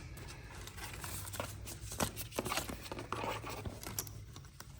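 Scattered light clicks and rustling from hands working at motorcycle handlebar wiring and connectors.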